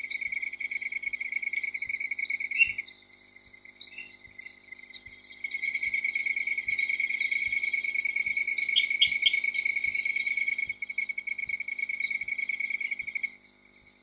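A night insect's high-pitched, fast-pulsing trill. It breaks off about three seconds in, starts again after about five and a half seconds, and stops near the end.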